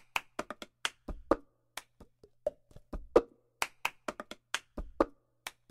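Cup-game percussion with no other instruments: hands clapping and a cup tapped and slapped down on a table in a quick, repeating rhythm, the pattern coming round about every two seconds.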